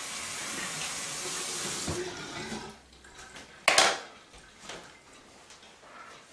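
Running water for about two seconds, fading out, then a single sharp knock a little over a second later.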